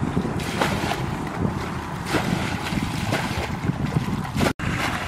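Wind buffeting the microphone, over water splashing and sloshing as buckets are dipped into and emptied from a shallow muddy channel. The sound drops out for an instant about four and a half seconds in.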